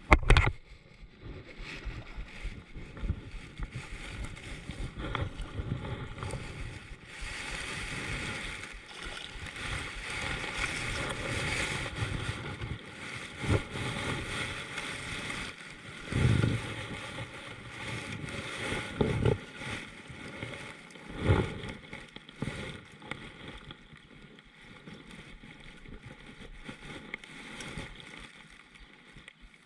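Water sloshing and splashing around a fishing kayak on a river, with a sharp knock right at the start and several dull thumps later, like gear or paddle knocking on the hull.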